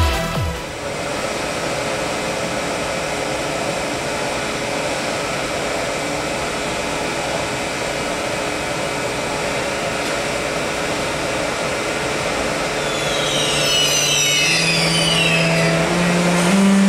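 Siemens Taurus electric locomotive of ÖBB class 1116 standing with its cooling fans and electrics running in a steady hum. Near the end it starts to pull away, and its traction converters give a low tone that rises in steps, with high whistles above it: the Taurus's well-known 'singing' start-up.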